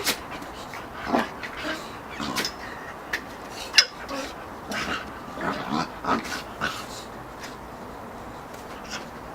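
A boxer puppy and a teacup Yorkshire terrier puppy play-fighting: short dog noises mixed with sharp clicks and knocks, coming in quick bunches, then dying down for the last couple of seconds.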